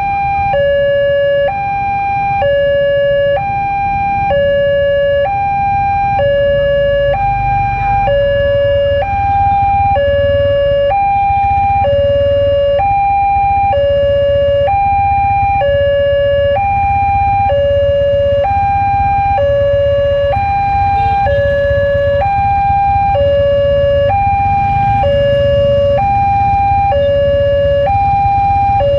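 Railway level-crossing warning alarm sounding a two-tone electronic chime, stepping between a higher and a lower tone about once a second. Low rumble of motorbikes and street traffic underneath.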